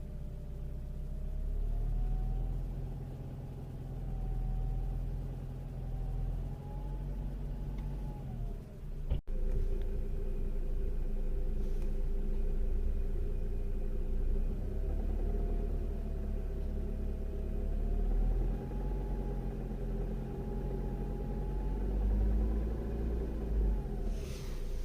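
Ford Focus 2 1.8 engine idling high at about 1300–1500 rpm with a knocking, a faint whine slowly wavering in pitch over the rumble. The knock comes from a faulty evaporative canister purge valve.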